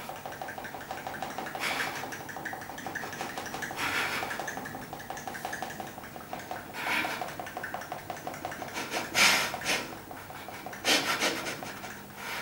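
A woman breathing heavily, with sharp noisy breaths every two to three seconds, the loudest near the end. Under them runs a faint steady fluttering tone.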